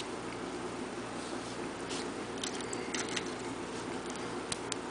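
Small plastic Lego minifigure parts being handled and fitted together, giving a few faint, sharp clicks and taps over a steady low background hum.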